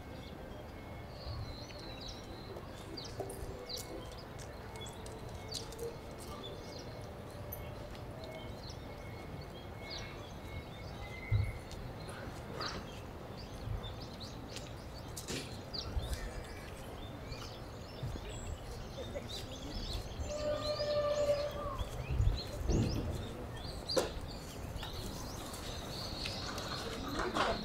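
Outdoor park ambience: a steady background hum with small birds chirping here and there. A few low thumps, loudest about 11 seconds in and again past the 22-second mark.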